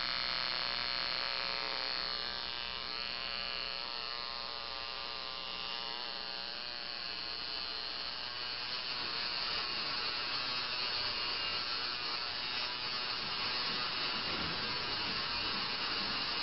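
Coil tattoo machine running with a steady electric buzz.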